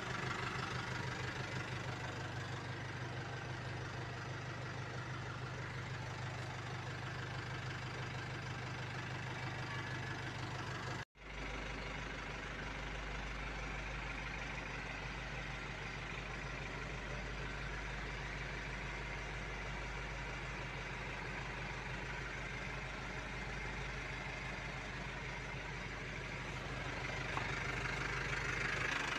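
Isuzu Elf NHR light truck's diesel engine idling steadily, heard from inside the cab and passenger compartment. The sound drops out for an instant about eleven seconds in and returns with a deeper hum.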